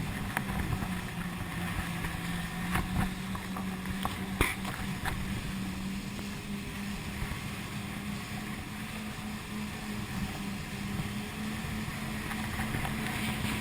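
Jet-ski engine running at a steady low speed, a constant hum under wind and water noise, with a few short sharp knocks, the loudest about four and a half seconds in.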